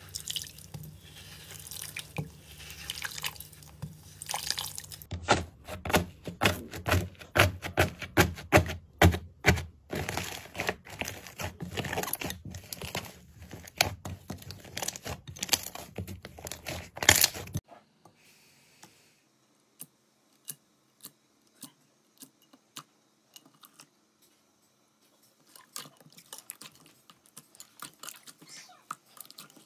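Hands squeezing, pressing and stretching slime in a glass dish: sticky popping and clicking. A rapid, loud run of clicks and pops starts suddenly about five seconds in and stops abruptly, followed by a quieter stretch with only a few single clicks, then soft squelching clicks again near the end.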